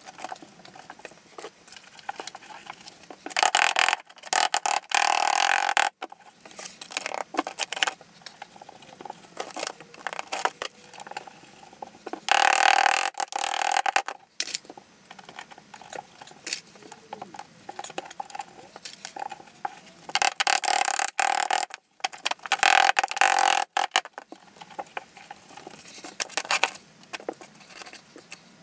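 Rubbing and scraping strokes over freshly set glass mosaic tile sheets, bedding them into the thinset, in four loud stretches of one to two seconds each with lighter clicks and rustling between.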